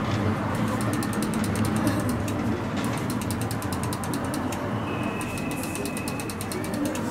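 Runs of rapid, ratchet-like clicking as a hand-held lever batter dispenser squirts castella batter into the cups of a cast-iron mini castella mold, over a steady low hum.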